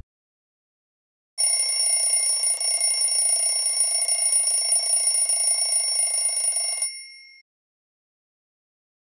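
Alarm clock bell ringing continuously for about five and a half seconds, starting about a second and a half in, then cutting off, its ring dying away within half a second.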